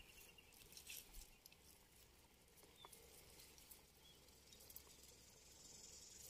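Near silence: a faint outdoor background with a few soft ticks and rustles, and a faint high insect buzz coming in near the end.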